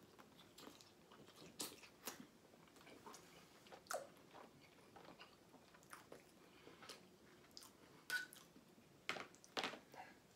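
Faint mouth sounds of a person chewing a mouthful of chicken carbonara pasta with bacon: scattered soft, wet clicks and smacks, a few louder ones near the end.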